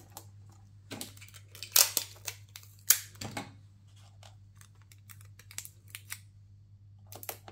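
Tape being cut and pressed down to hold metal cutting dies in place on cardstock: a run of sharp clicks and short scrapes in the first half, quieter for a few seconds, then a few more near the end.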